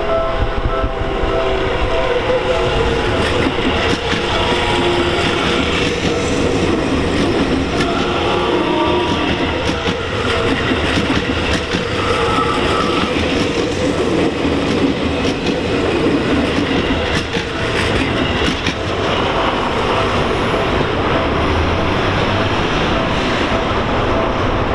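Seibu Shinjuku Line electric commuter train passing close by at a level crossing, a loud steady rumble with its wheels clattering over the rail joints. The crossing's warning bell rings over it, heard most clearly at the start and again near the end.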